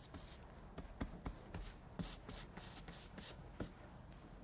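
Large polyester bristle paintbrush applying latex paint in short crisscross strokes: a faint, repeated swish of bristles on the board, about three strokes a second.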